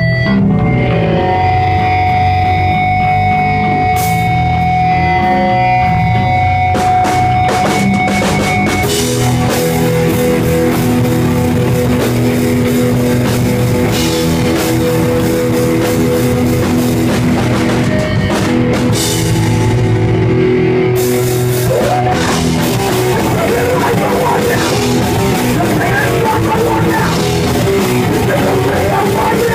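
Rock band playing live: guitar over a drum kit. Long held notes ring through the first several seconds, then denser full-band playing takes over about nine seconds in.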